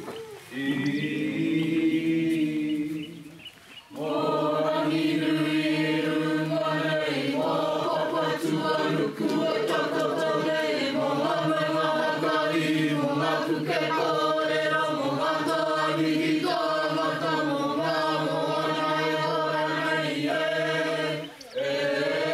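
Group of voices singing together in a slow, steady chant-like song: one voice starts alone, and the rest join in about four seconds in.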